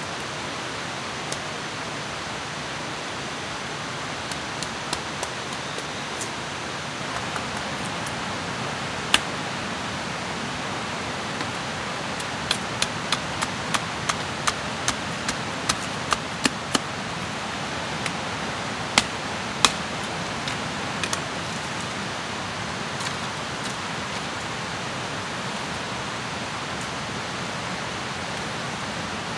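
A blade chopping into a log: a few single strikes, then a quick run of about a dozen at roughly three a second around the middle, and a couple more after. Under it runs a steady rushing noise like flowing water.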